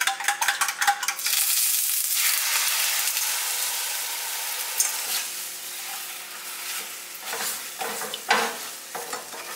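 Beaten eggs hitting a hot nonstick frying pan on a gas burner: after a second of quick clicking, a loud sizzle starts and slowly fades to a softer frying sizzle. Near the end a spatula scrapes and stirs the eggs in the pan.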